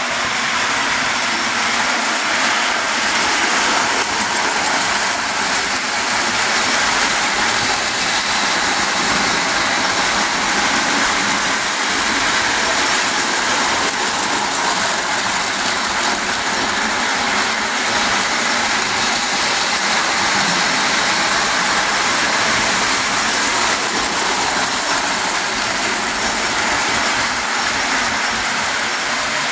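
Lionel post-war O-gauge toy trains running on tinplate track: a steady mechanical running noise of the locomotive motors and wheels on the rails.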